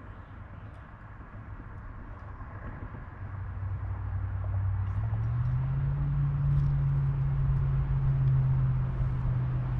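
An engine droning, growing steadily louder from about three seconds in, its pitch stepping up a little about five seconds in.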